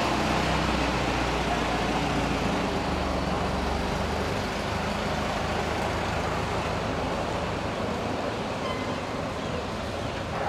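Westland Lysander's Bristol Mercury nine-cylinder radial engine running in flight, a low drone that weakens about halfway through.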